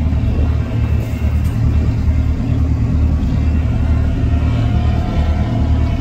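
Loud, steady low rumble with irregular pulsing, from a moving boat's engine and wind buffeting the microphone, with a faint steady drone above it.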